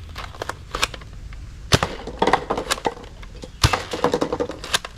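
Sharp plastic clicks and knocks from a toy blaster being handled, about a dozen at uneven intervals, over a low steady rumble.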